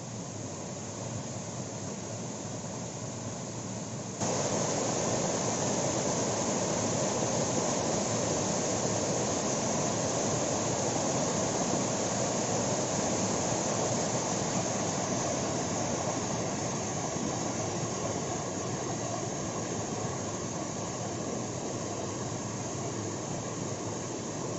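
Steady roar of a waterfall, an even rushing noise that jumps louder about four seconds in and then holds level.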